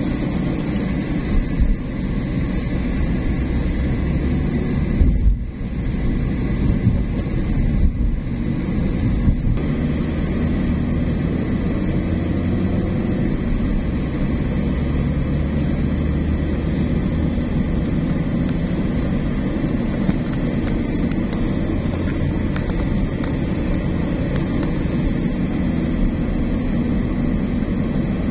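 Steady rumble of a car driving on city roads, engine and tyre noise, with a few brief louder bumps in the first ten seconds.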